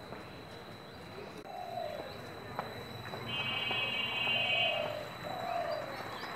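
A dove cooing in several short, slightly falling coos over outdoor street ambience, with a steady high-pitched tone for about a second and a half in the middle.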